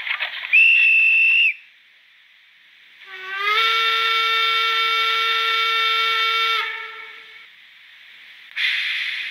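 Digital sound decoder of a Fleischmann HO class 18 steam locomotive model playing whistle sounds through its small speaker: a short, loud, high whistle, then after a pause a longer, lower multi-tone steam whistle that rises in pitch as it sounds, followed near the end by a burst of steam hiss.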